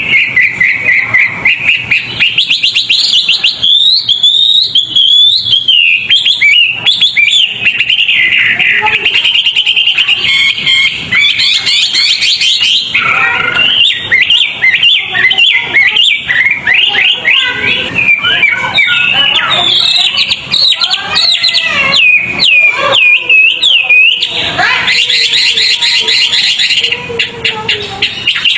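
A caged songbird singing a fast, unbroken song of rapid chirps, trills and quick rising and falling whistles, loud throughout.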